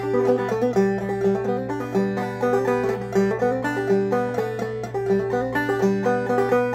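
Five-string banjo played clawhammer style in open G tuning (gDGBD), a steady stream of quick plucked melody notes over the repeating high drone string of an old-time fiddle tune.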